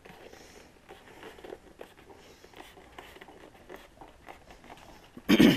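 Hands pressing and working the freshly glued rubber surround of a subwoofer cone down onto the speaker basket, making soft rustling, crunching handling noise with small clicks. There is a brief louder bump near the end.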